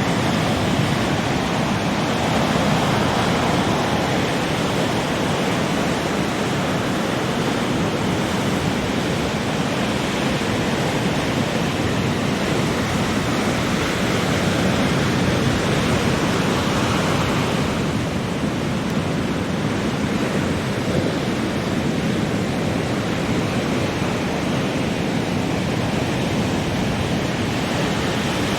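Ocean surf on a beach: a steady, continuous wash of waves with no single breaker standing out, the hiss a little duller from about two-thirds of the way in.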